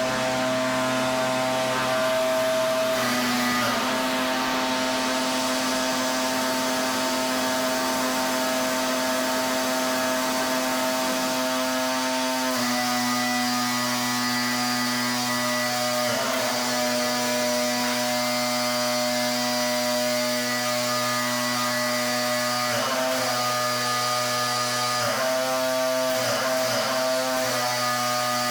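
Pressure washer running steadily with the hiss of its spray. Its motor's pitch wavers briefly about half a dozen times.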